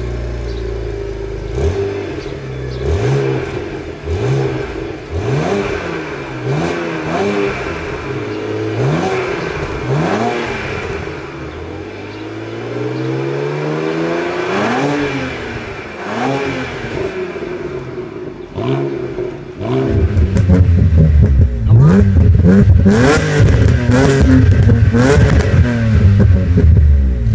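BMW Z4 sDrive35i's twin-turbo straight-six revved repeatedly while stationary, with short rev blips about once a second and one longer, slower rev near the middle. About 20 s in, a louder BMW Z4 M's straight-six through a Capristo aftermarket exhaust is revved in quick, sharp blips.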